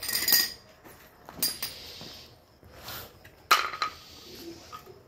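Metal tools and car parts knocking and clinking in a few separate strikes, the sharpest about three and a half seconds in, during work on a rear drum brake.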